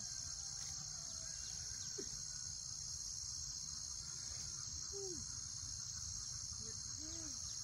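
Steady, unbroken high-pitched drone of insects such as crickets or cicadas, with a few faint short calls from some small animal underneath.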